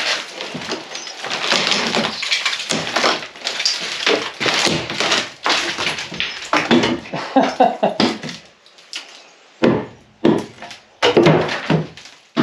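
Wooden laths being wrenched off the studs of an old lath-and-lime-plaster (tabique) wall: dense, irregular cracking and splintering of wood with scraping and crumbling plaster. A few separate loud knocks and clatters come near the end.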